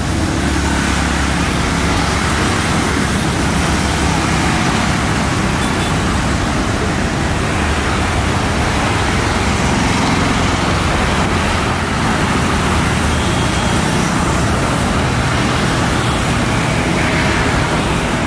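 Jet airliner engines running loudly and steadily: a dense, even rushing roar with no break.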